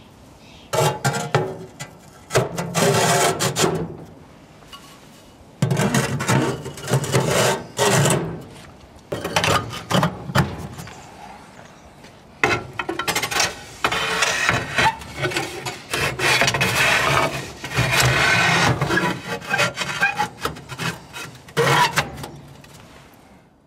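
Firebricks scraping against the oven floor and against each other as they are slid into place, in repeated rough scraping spells of a few seconds each.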